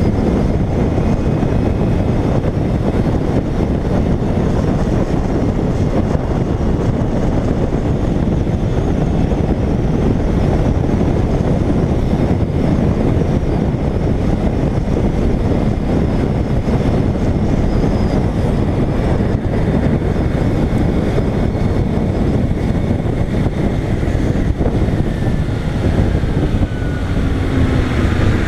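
Steady rush of wind on an action camera's microphone aboard a moving Kawasaki Ninja 250R, with the hiss of tyres on a wet road and the bike's engine running underneath.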